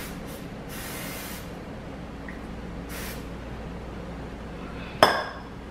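Aerosol cooking-spray can hissing in three short bursts as a frying pan is greased, the longest about a second in. A single sharp clank with a brief ring follows near the end.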